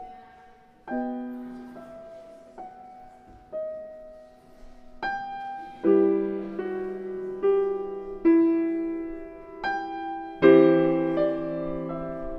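Solo piano playing a slow hymn-tune improvisation: single notes and chords struck and left to ring, the texture growing fuller about halfway through, with the loudest chord near the end.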